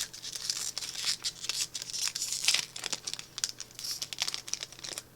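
Plastic booster-pack wrapper crinkling and tearing as a Magic card pack is opened: a dense run of sharp crackles that stops just before the end.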